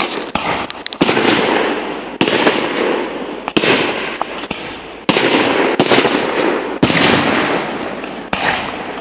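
Aerial firework shells bursting one after another: about seven sharp bangs, each trailing off in a rumbling echo, with smaller pops and crackles in the first second.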